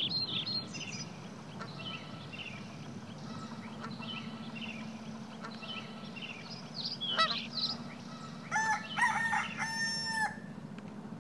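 Small birds chirping in quick repeated notes, then near the end a rooster crowing once, about two seconds long, over a steady low hum.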